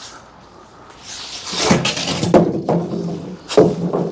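Handling noise of a boxed unit being slid and set upright by a hand truck: a run of scrapes with about four sharp knocks in the second half.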